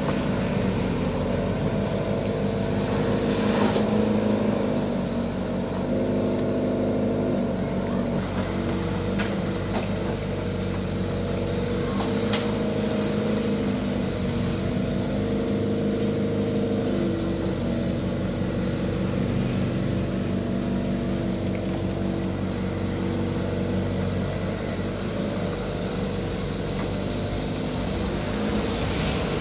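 Engine running steadily, with a few stacked tones whose pitch steps up and down now and then. A few short clicks sound over it.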